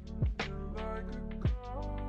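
Background music: a mellow track with a deep drum beat and held chords.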